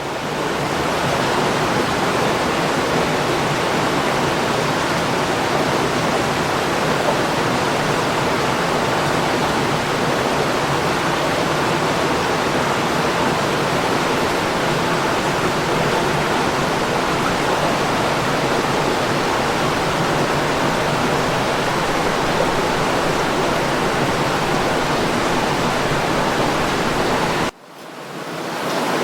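Waterfall: a steady, dense rush of falling water that fades in at the start. Near the end it drops out suddenly and swells back up, like a loop starting over.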